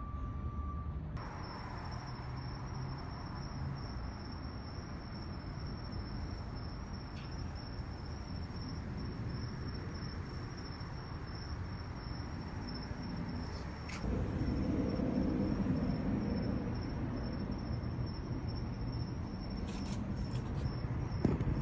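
Air die grinder running with a carbide burr, porting the intake ports of a Volvo redblock aluminium cylinder head. It starts about a second in with a steady high whine over a grinding hiss, and grows louder and rougher about 14 seconds in.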